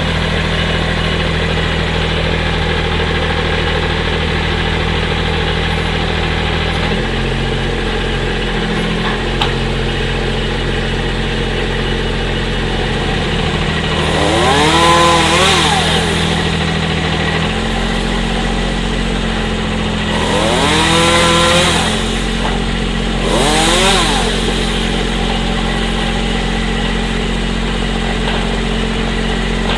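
The engine of a compact tree-trimming machine runs steadily, its pitch stepping between settings a few times. Three rising-and-falling whines come partway through, the first two longer and the third short, about a second and a half after the second.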